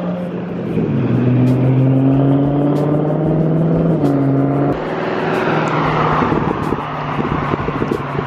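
Car engines and exhaust in traffic: a steady drone that shifts pitch in steps a few times, turning rougher and pulsing from about five seconds in.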